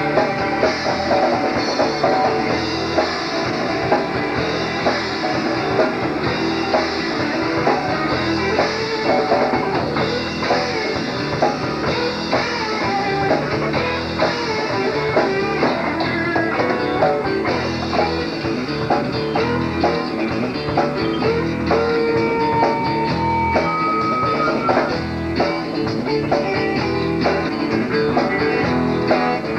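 Southern rock band playing: guitars over bass and a drum kit.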